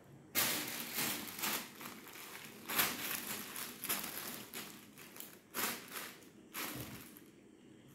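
Thin clear plastic bag crinkling and rustling in irregular bursts as cats scrabble about inside it. It starts suddenly about half a second in and dies down near the end.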